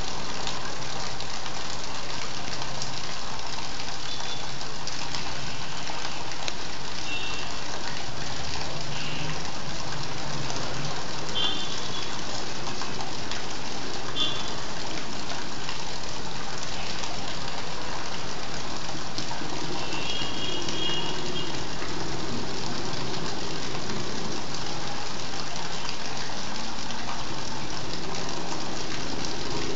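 Overflowing overhead water tank's water pouring and splashing steadily onto a concrete rooftop, a continuous even rush of falling water. A few short high chirps come through it now and then.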